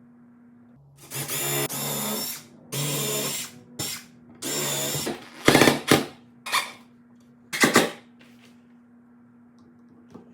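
Power drill boring pilot holes into mahogany in three runs of up to about a second and a half each, followed by several shorter, sharper bursts.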